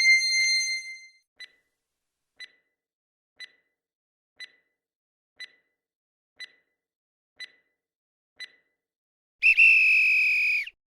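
Quiz-timer sound effects: a high chime fades out, then eight short ticks come one per second as the countdown runs, and near the end a loud buzzer sounds for just over a second, signalling that time is up.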